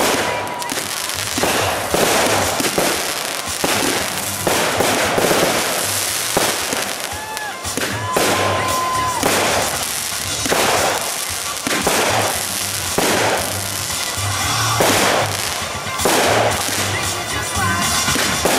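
Consumer fireworks cake firing shot after shot, about one bang a second, each with a crackling tail, with a couple of short whistles among them.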